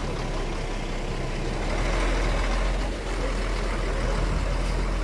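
Vehicle engine idling with a steady low rumble, swelling slightly for a second or so partway through.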